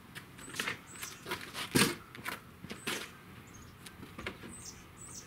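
Knocks and clatter of a box solar oven being opened by hand, its reflector panel and lid handled, with the loudest knock a little under two seconds in. Small birds chirp high and briefly now and then.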